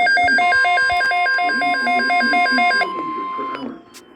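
Electronic alert tones overlapping: a buzzy beep alternating rapidly between a low and a high pitch, about five changes a second, with the steady 1050 Hz NOAA Weather Radio warning alarm tone joining about half a second in. The alternating beep stops just before three seconds, the 1050 Hz tone shortly after.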